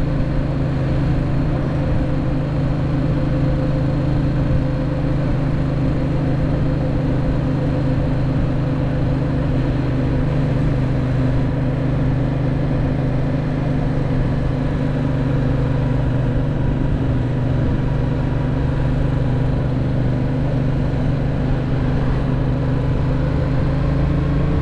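Yamaha MT-07's 689 cc parallel-twin engine running at a steady speed while the bike is ridden, its pitch starting to rise near the end as it accelerates.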